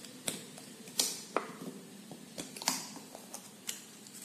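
Piston rings on a Royal Enfield piston being handled and turned in their grooves, giving a string of light, sharp metallic clicks and small scrapes, about six in four seconds.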